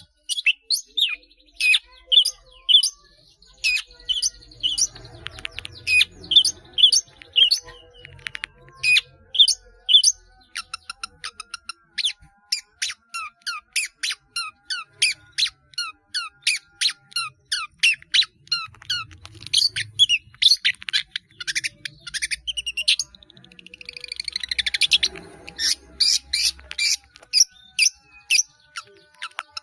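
Long-tailed shrike (cendet) singing a fast, unbroken run of short sharp chirps and whistles, several a second, woven with songs mimicked from other birds. A harsher, scratchy burst comes near the end.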